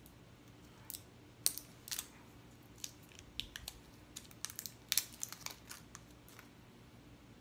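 Scattered crinkles and small sharp clicks of thin plastic wrapping being picked at and torn open by hand to free a pair of AAA batteries.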